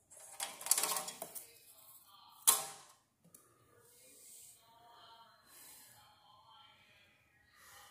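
Clattering and rattling from hands handling a ceiling fan's metal motor housing and its wires, followed by one sharp click about two and a half seconds in.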